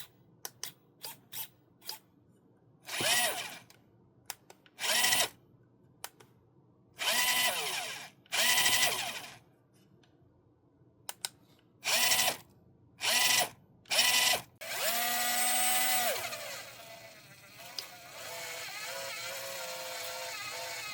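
Small electric RC-car motor and gearbox whining in about eight short throttle bursts, the pitch climbing and falling with each, after a few light plastic clicks. The last burst is held about a second and a half, and a steadier hum with fixed tones follows near the end.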